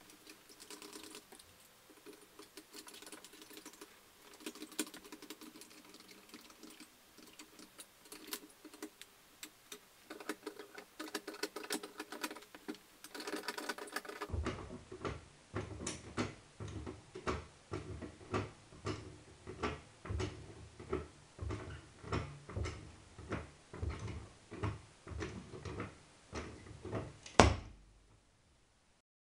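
Car jack worked by hand against a sneaker. First comes quiet, irregular clicking and rattling. About halfway through it gives way to regular clanking strokes, nearly two a second, from a wheeled trolley jack being pumped. One loud crack comes near the end.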